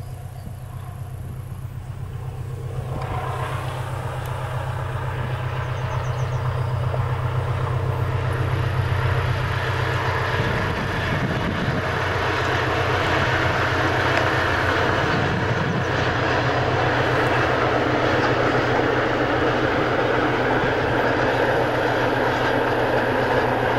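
SM42 diesel-electric locomotive running as it hauls passenger coaches past, its engine a steady low hum with the rolling noise of the train growing louder from about three seconds in, then holding steady through the second half.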